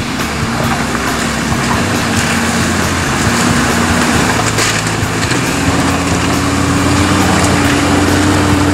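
Toyota LandCruiser 80 series 4.2 turbo diesel engine pulling slowly through a rocky creek crossing, with tyres splashing through shallow water. The engine note holds steady and steps up a little about halfway through as the truck comes closer and gets louder.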